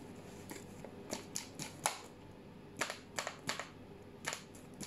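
A paper flour bag crinkling in short, irregular crackles, about ten of them, as plain flour is shaken out of it into a plastic mixing bowl.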